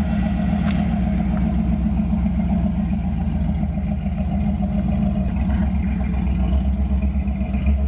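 1965 Ford F-100 pickup with a stock Ford 302 V8 driving slowly past and pulling into a parking space, the engine running steadily at low speed.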